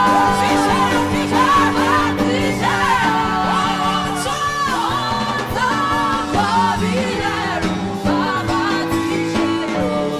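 A woman singing gospel live over instrumental accompaniment with sustained chords, her voice sliding and bending between held notes.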